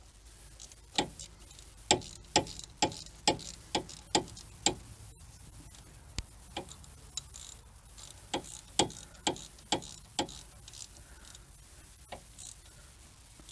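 Hand ratchet wrench clicking in short runs of sharp metallic clicks, about two a second, with a pause in the middle, as the hub bearing's mounting bolts are run in.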